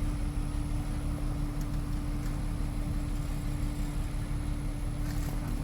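Engine of the lifting machine running steadily at idle, a constant low rumble with an even hum.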